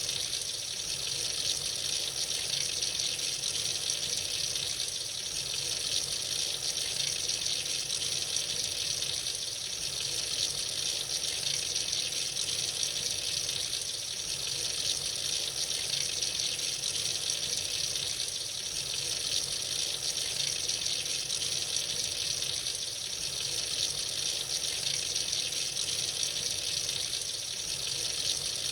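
Tap running freely into a sink: a steady stream of water splashing.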